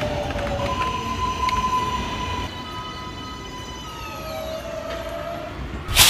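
Subway train's electric motors whining in steady tones that step down and fade as it slows to a stop. A sudden loud burst of air hissing near the end marks the brakes at the stop.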